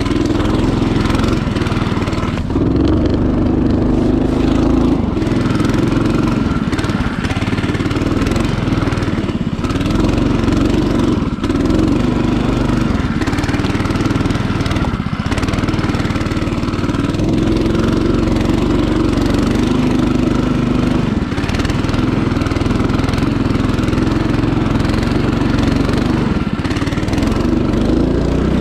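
Small petrol engine of a motorized snowboard running hard under load on an uphill climb, its note swelling and easing with the throttle.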